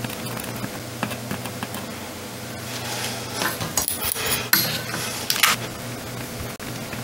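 Soldering iron hissing on flux at a circuit board's solder joints, with light metallic clicks of the tools; the hissing is loudest in bursts from about three to five and a half seconds in.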